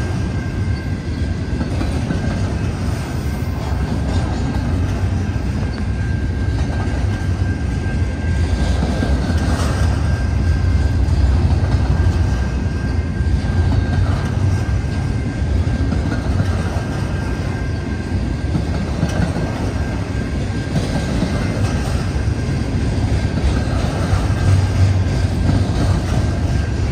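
Double-stack intermodal freight cars rolling past at speed: a loud, steady rumble of steel wheels on rail, with a thin high tone running through it and clicks over rail joints now and then.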